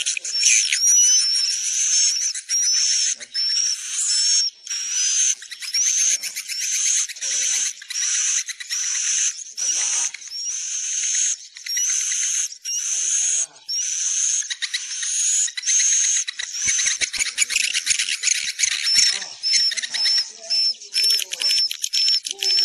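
Edible-nest swiftlet calls: a dense run of high chirps, each a quick rising sweep repeated roughly every half second. About three-quarters of the way through they change to shorter, quicker chirps, about three a second. This is a swiftlet-house lure call, the sound played to draw swiftlets in to roost and nest.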